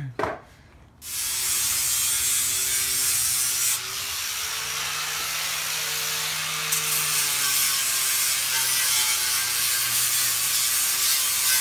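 Handheld electric power tool grinding and smoothing the rough boards of a wooden pallet. It starts about a second in and runs steadily, its pitch wavering as it is pressed against the wood.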